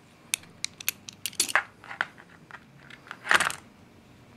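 A quick run of sharp clicks and small cracks as vise grips clamped on a disposable ceramic-coil vape cartridge's mouthpiece rock it back and forth and pull the cartridge free, with a short louder rasp about three seconds in.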